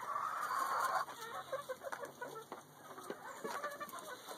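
Chickens clucking: one drawn-out call in the first second, then many short clucks.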